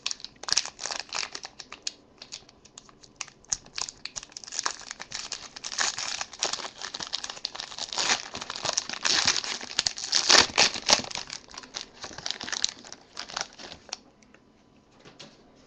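Foil wrapper of a trading-card pack being torn open and crinkled: a dense run of crackling foil that goes quiet about two seconds before the end.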